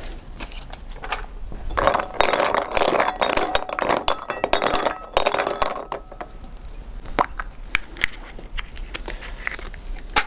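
Plastic draw balls rattling and clinking against a glass bowl as a hand rummages among them, then a few sharp clicks as one ball is twisted open.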